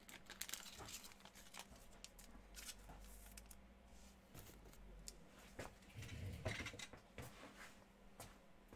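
Faint rustling and soft clicks of trading cards being handled and slid into protective holders, a little louder about six seconds in.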